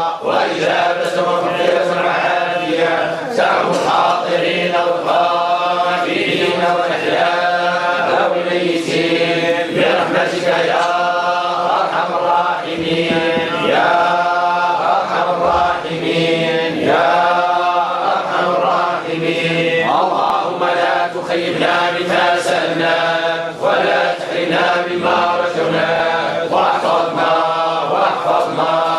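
Group of men chanting a Sufi devotional praise chant (madih) together, with long drawn-out notes that slide from pitch to pitch.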